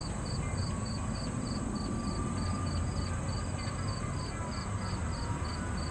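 Low, steady rumble of approaching CSX diesel freight locomotives, with insects chirping in a regular pulse about three times a second over a steady high insect buzz.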